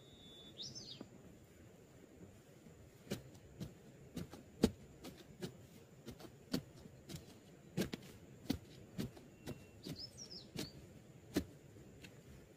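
A hand digging tool jabbing into loose soil in a hole. About sixteen dull strikes come irregularly, roughly two a second, starting about three seconds in. A bird chirps briefly near the start and again near the end.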